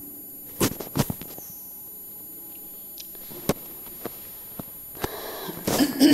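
Quiet background hum broken by a scattering of sharp, short clicks, about eight over several seconds. A voice starts near the end.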